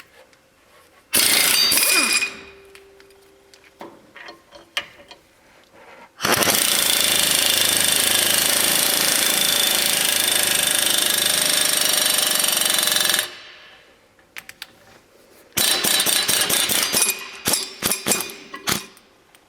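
3/8-inch air tool running in bursts as it drives a ball joint press, pressing wheel studs into a rear axle flange: a short burst about a second in, a long steady run of about seven seconds from around six seconds in, then another run and a string of short bursts near the end.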